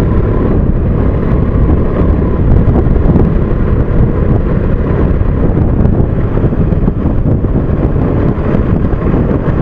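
Wind buffeting the microphone over a KTM RC single-cylinder sport bike's engine running at riding speed, a loud, steady rush.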